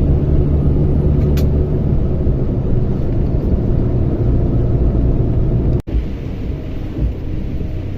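Mercedes-Benz Axor 2644 truck's diesel engine running under way, a steady low drone heard inside the cab. It breaks off for an instant about six seconds in and carries on slightly quieter.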